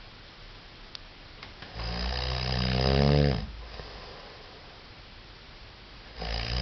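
A man snoring in his sleep, a relentless, regular snore. One loud snore comes about two seconds in and lasts a second and a half. Then quieter breathing, and the next snore starts near the end.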